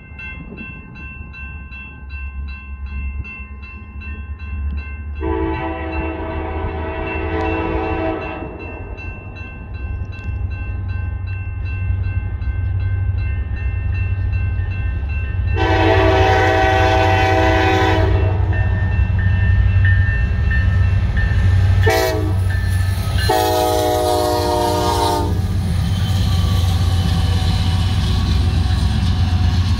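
Diesel freight locomotive horn sounding the grade-crossing signal: two long blasts, a short one, then a long one. Under it the locomotive's engine rumble grows steadily louder as the train nears. A crossing bell rings steadily in the background.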